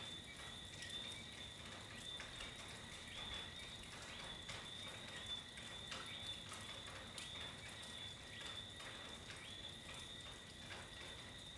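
Faint night chorus of calling frogs and insects: a steady high-pitched trill, with short irregular ticks and clicks through it, several a second.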